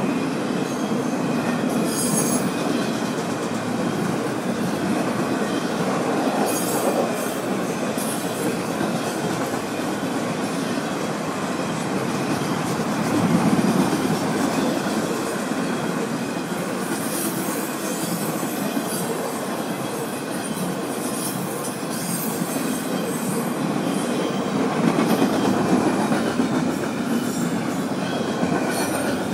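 Empty Florida East Coast Railway intermodal freight cars (double-stack container cars and trailers) rolling steadily past, their wheels rumbling and clacking on the rails. Several times the wheels give brief high-pitched flange squeals.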